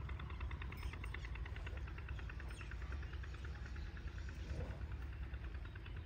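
An engine running steadily: a low rumble with a fast, even ticking of several beats a second over it.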